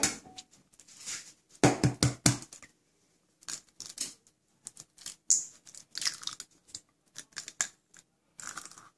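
Irregular clicks, taps and rustles of hands working at a stainless steel mixing bowl as batter ingredients go in, an egg cracked into it among them. The loudest part is a quick run of sharp knocks about two seconds in.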